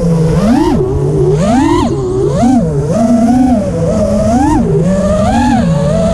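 Brushless motors and propellers of a 5-inch FPV quadcopter, heard from on board: a buzzing whine that swoops up and down in pitch about once a second as the throttle is punched and eased through turns.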